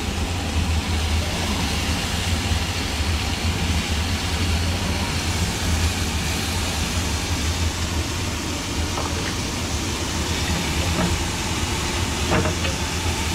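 Magpie goose shashlik skewers sizzling on a hot grill pan over a steady low rumble, with a few light clinks of the metal skewers being turned in the second half.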